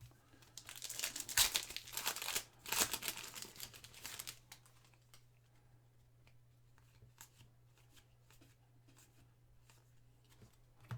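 A plastic trading-card pack wrapper being torn open and crinkled for about four seconds, followed by faint scattered ticks.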